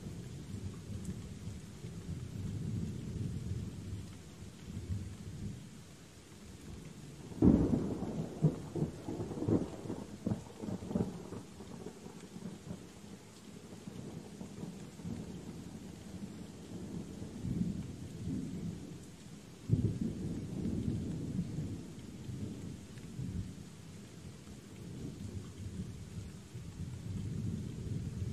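Steady rain with rolling thunder. A sudden thunderclap about a quarter of the way in rumbles on for a few seconds, and another roll of thunder starts about two-thirds of the way through.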